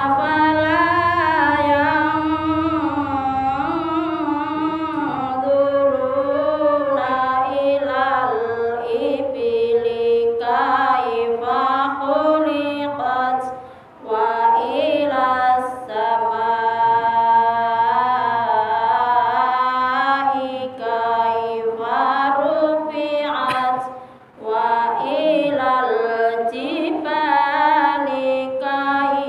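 A woman's solo voice chanting Qur'an recitation (tilawah) in long, ornamented melodic phrases. She pauses for breath twice, about halfway through and again near the end.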